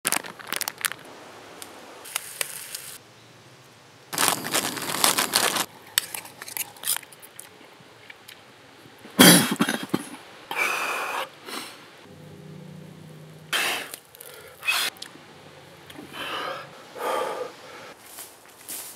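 Footsteps on the forest floor, crunching in irregular bursts, with one sharp loud crack about nine seconds in.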